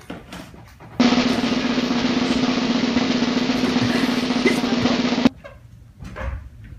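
Drum roll sound effect, running about four seconds and starting and stopping abruptly.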